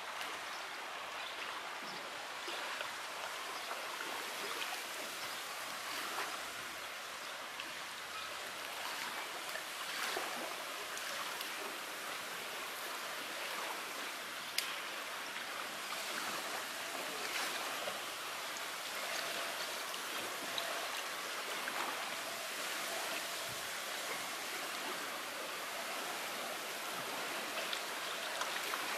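Small wind-driven waves lapping and splashing at the lake shore: a steady wash of water with scattered small splashes.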